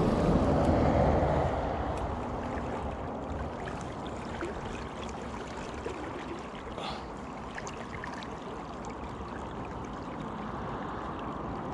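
River water flowing and lapping steadily close by, a little louder in the first second or two before settling to an even rush.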